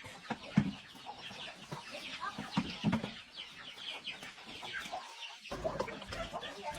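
A flock of chickens clucking and cheeping, many short calls overlapping, while they are being fed.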